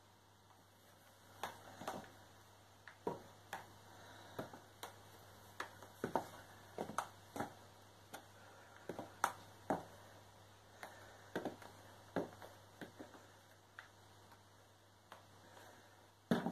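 Sharp clicks at uneven intervals, often in pairs, from high-heeled boot steps. Near the end comes a louder double knock as a boot heel strikes the wooden pendulum wall clock's case.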